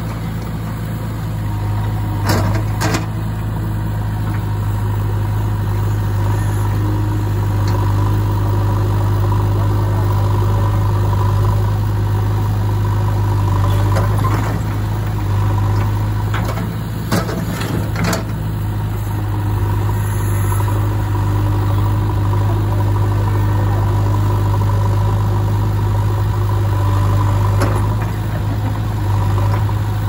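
JCB 3DX backhoe loader's diesel engine running steadily, with a few short knocks along the way.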